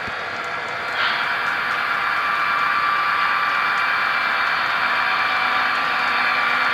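HO scale model commuter train running along its track: a steady whirring, rolling noise with a faint steady whine in it, which gets louder about a second in.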